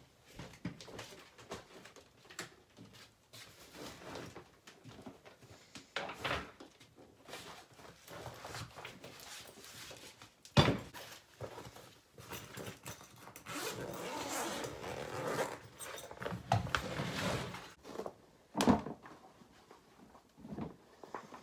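Someone rummaging through stored belongings: bags and fabric rustling, straps and items clicking and knocking, with a sharp thump about halfway through and another near the end.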